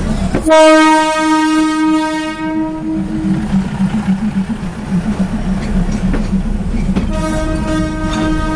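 State Railway of Thailand train sounding its horn twice. The first blast starts about half a second in and lasts about three seconds; the second starts near the end. A steady low engine rumble runs underneath.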